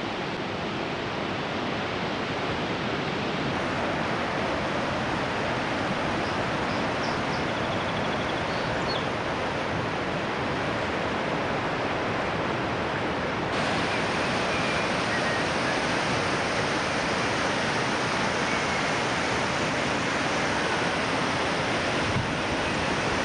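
Mesa Falls on the Henrys Fork of the Snake River: a steady rush of whitewater pouring over the falls, heard close by. It turns a little louder and brighter about halfway through.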